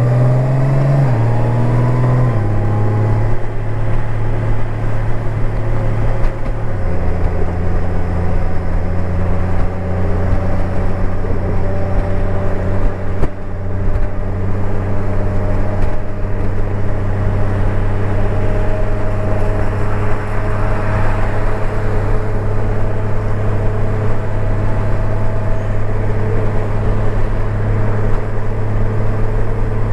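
Honda Gold Wing's flat-six engine pulling away through three upshifts in the first seven seconds, the pitch dropping at each shift, then settling into a steady cruise with a slowly rising note. A constant rush of wind and road noise runs underneath, picked up by a microphone inside the rider's helmet.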